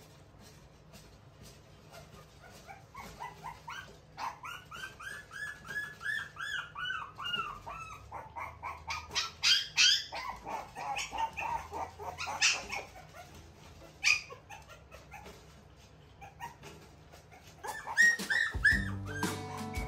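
Shiba Inu puppy whining and yipping in a quick run of short, high calls that climb and then fall in pitch, while straining to climb the pen's raised wall. There are a few sharp knocks in the middle as the puppies scrabble at the wooden wall.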